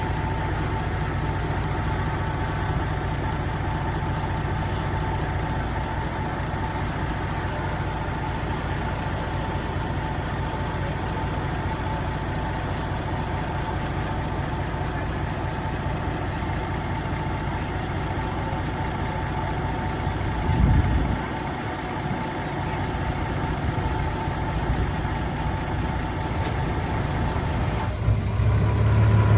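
Heavy diesel engine running steadily at low speed, with a steady whine over the hum. About two-thirds of the way through there is a brief low surge, and near the end the engine gets louder.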